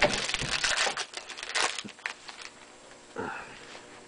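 Crinkling of a trading-card pack's foil wrapper as it is handled and opened, loudest in the first second with another burst near the middle.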